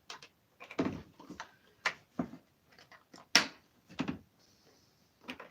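Irregular clicks and knocks of plastic parts being handled and pried at on a Dyson Animal vacuum cleaner's cyclone assembly while trying to free a plate, with the sharpest knock about three and a half seconds in.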